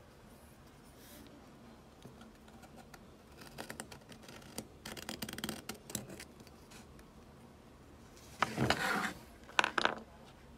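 Marking awl point scratching a line into a pine board along the edge of a steel square: light, uneven scratching, then a louder scrape and a few sharp clicks near the end.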